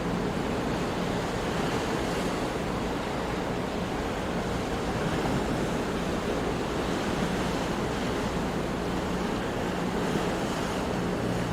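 Ocean surf: a steady, even wash of waves with no distinct single breakers.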